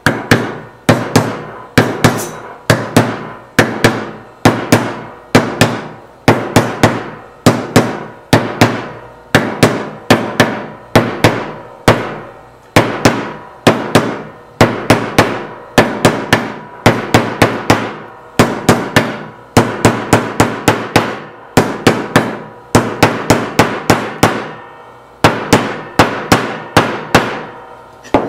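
A mallet knocking a wooden end plate down onto steel guide rods and their bushings, in quick runs of two to four sharp knocks, over and over, each with a short ring.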